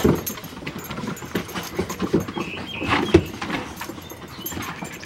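Boxer puppies and an adult boxer scrambling on a wooden deck: many quick footfalls and scuffs of paws on the boards, with a few short high puppy squeaks and one louder knock about three seconds in.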